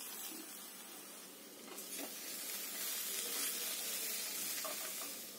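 Cabbage and chickpea sabzi sizzling in a steel kadai as a wooden spatula stirs it. The sizzle grows louder about two seconds in.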